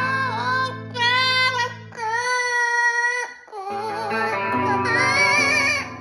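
Amazon parrot singing long, wavering high notes with slides, along with electric guitar chords played through an amp. The guitar drops out briefly about halfway through while the parrot holds a note.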